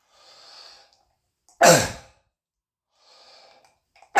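A man's barking croup cough, echoing off the walls of a small room. He takes a breath in, then gives one loud cough about one and a half seconds in that drops in pitch. He takes another breath, and a second cough starts right at the end.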